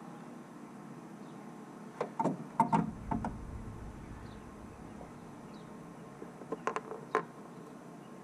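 A few short knocks and clanks in two clusters, about two seconds in and again near the end, from hands handling parts and tools against the car's inner fender. Faint bird chirps in the background.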